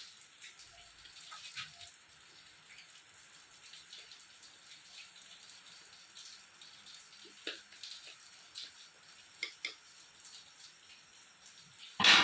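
Faint water splashing and trickling, with scattered small clicks and knocks, and one loud clatter near the end.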